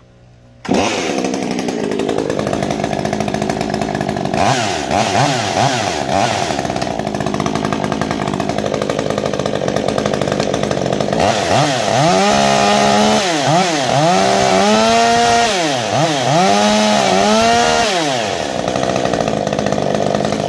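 Ported MS201 two-stroke chainsaw with a buckshot muffler, starting up less than a second in and running steadily. From about halfway it is revved up and down several times, then it cuts off suddenly.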